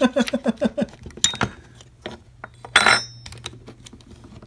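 Small metal and plastic parts of a cordless electric staple gun clicking and clinking as they are handled and fitted back together. A quick run of short pitched pulses in the first second, then scattered sharp clicks and a brief scrape about three seconds in.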